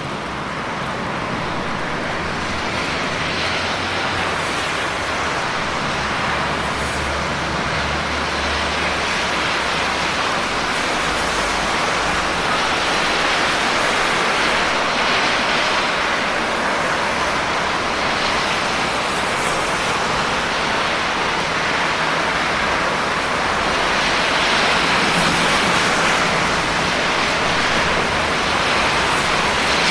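Steady heavy rainfall, an even hiss with no single drops standing out, with a faint low rumble underneath early on.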